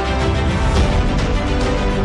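Outro music with a steady beat.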